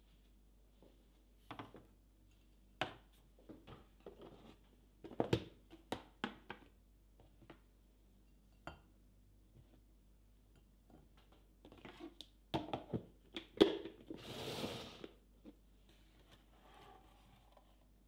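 Light knocks and clinks of a glass and a ceramic plate being set down and moved on a wooden tray, with cookies placed on the plate. Near the end comes a brief crinkling rustle.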